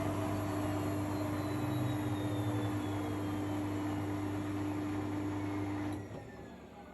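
Miele Professional washing machine slowing down at the end of its spin cycle, its drum whine falling steadily in pitch. About six seconds in, the motor hum cuts off and the noise drops suddenly, leaving a fading, falling whine as the drum coasts down.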